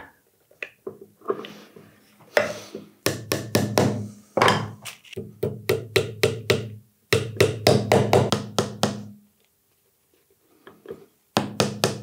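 Small hammer tapping brass upholstery nails through leather into soft wood, in several quick runs of light strikes with short pauses between them.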